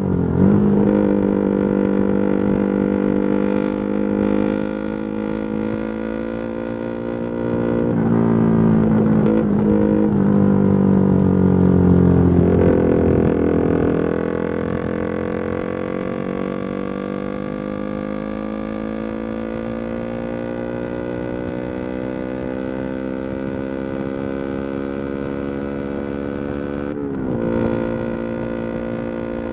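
Motorcycle engine running while riding, its pitch falling around twelve seconds in and then climbing slowly for a long stretch. Near the end there is a brief sharp dip in pitch before it picks up again.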